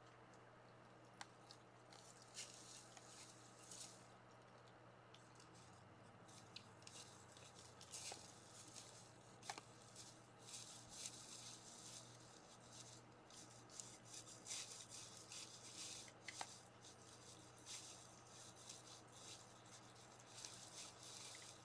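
Deer feeding: faint, irregular crunching and rustling as they chew and nose through dry leaf litter, with scattered small clicks.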